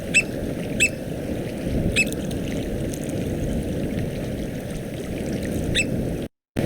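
American oystercatcher (northwest Mexican subspecies Haematopus palliatus frazari) giving its typical single-note call, four short sharp notes spaced irregularly over a steady low rushing background noise. The audio cuts off suddenly about six seconds in.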